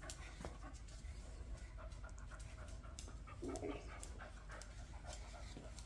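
A cocker spaniel panting softly, with short scratchy strokes of a grooming brush through its coat.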